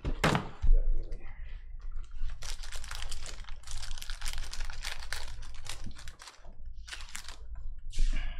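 Foil wrapper of a trading-card pack being torn open by hand, crinkling and crackling almost without a break, with a loud crackle just after the start.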